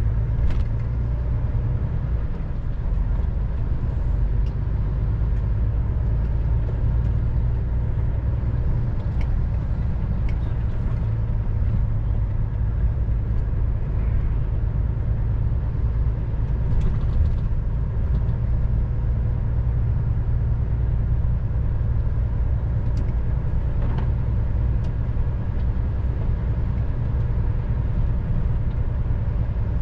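Lorry engine and road noise heard from inside the cab while driving slowly: a steady low drone with a few light clicks and rattles.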